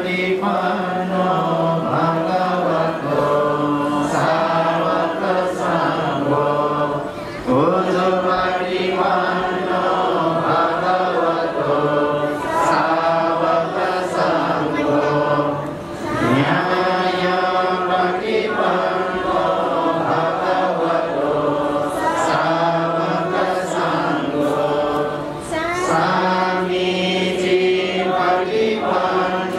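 A group of voices chanting a Buddhist devotional chant in long, steady phrases, each broken by a brief pause about every eight or nine seconds.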